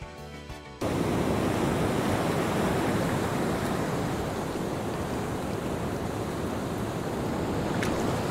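Background guitar music cuts off under a second in, and the steady rush of ocean surf, waves breaking on a shore, takes over.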